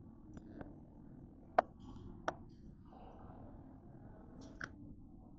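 Faint room tone of a large, mostly empty indoor mall hall, broken by a few sharp clicks: a loud one about a second and a half in, a smaller one soon after, and another near the end.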